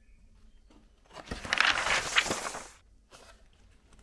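Clear plastic bag crinkling and rustling as it is handled and pulled away from the box, starting about a second in and lasting under two seconds.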